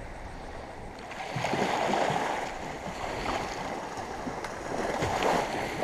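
Small waves washing in shallow surf, with wind rumbling on the microphone; the wash swells up about a second and a half in and again near the end.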